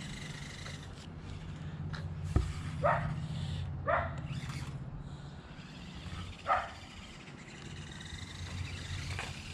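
A dog barking three times, two barks about a second apart and a third a couple of seconds later, over a steady low hum, with one sharp click between them.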